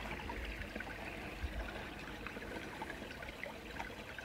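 Faint trickling and swishing of water as a plastic gold pan is tilted and gently swirled over its concentrate, with a few faint ticks.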